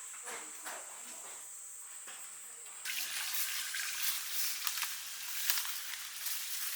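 Flowing water, a steady rush with scattered splashy clicks, coming in abruptly about three seconds in. Before it there is a steady high thin whine over light rustling.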